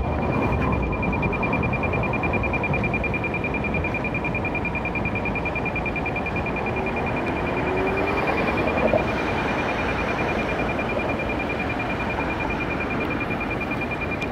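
Fast, steady high-pitched electronic beeping, over the low background noise of a tram standing still.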